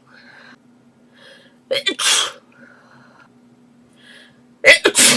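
A girl sneezing twice in a sneezing fit, about three seconds apart: each a quick catching breath in, then an explosive sneeze, the second the louder. Faint breaths can be heard between them.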